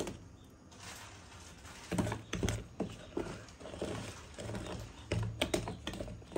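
Wire whisk clicking and scraping against a plastic bowl while stirring thick chocolate cake batter by hand: quick irregular taps that come thick and fast from about two seconds in.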